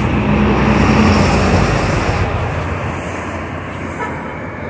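Road traffic: a vehicle's engine passing close, loudest in the first second or two and then fading away, over steady traffic noise.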